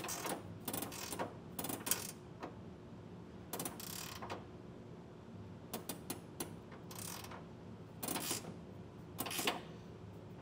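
A 19 mm ratcheting wrench clicking in short bursts of rapid ratchet strokes, with brief pauses between, as nuts are snugged down on bolts.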